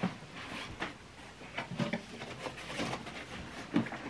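Irregular light knocks, scuffs and rustling as an old wooden tackle box that serves as a seat is handled and lifted.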